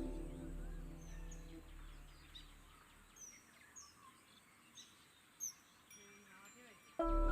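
Soft background music fades out over the first couple of seconds, leaving a bird's short, falling chirps repeated every half second or so. The music comes back suddenly near the end.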